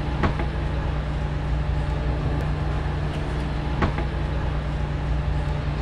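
Steady low mechanical hum with a rumbling noise underneath and a couple of faint clicks.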